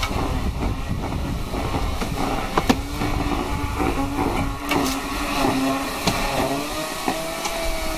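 Hammer blows knocking at an old brick wall being demolished: a few sharp knocks, over a steady engine-like hum.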